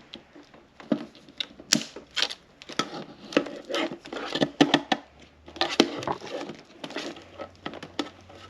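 Packing tape being cut and peeled off a cardboard toy box, with irregular snips, crinkles and rustles of the packaging.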